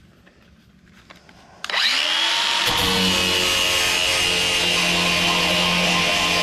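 A power grinder starts suddenly about two seconds in, spins up and then runs steadily at full speed, grinding paint off the steel body panel of a Jeep CJ5.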